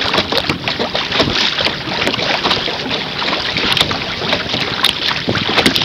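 Water splashing and lapping against a canoe's hull as it moves through light chop, heard close to the waterline: a steady rush broken by many small irregular splashes, with wind on the microphone.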